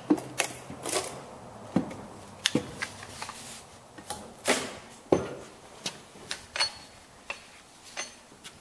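Irregular metallic clanks and knocks, a dozen or more at uneven intervals, as the cast-iron cylinder head of a Jeep 4.0-litre inline-six is worked loose and lifted off the engine block.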